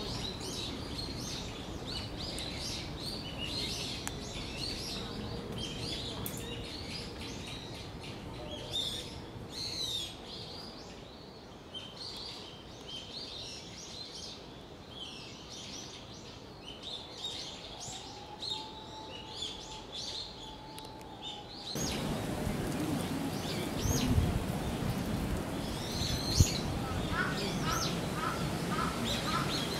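Wild birds chirping and calling in the trees, many short high chirps repeated over and over, with a run of lower, evenly repeated chirps near the end.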